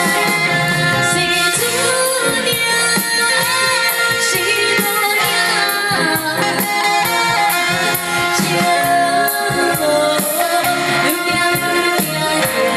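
Live band music for a Chinese pop song, with a woman singing over it.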